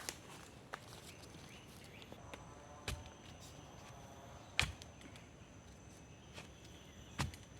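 Five sharp knocks or clicks at irregular intervals, the loudest about three seconds in, over a quiet background with a faint steady high tone.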